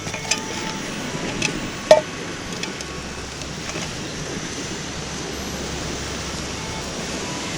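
Steady rushing noise of wind and lake waves, with a few light metal clinks of camp cookware being handled, the loudest a short ringing clank about two seconds in.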